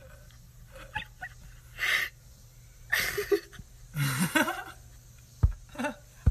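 Short, breathy bursts of laughter, four or five of them, then two sharp knocks near the end.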